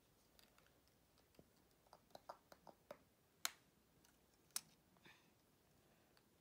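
Faint clicking of plastic LEGO bricks being pressed together and handled: a scatter of small clicks, with two louder clicks about three and a half and four and a half seconds in.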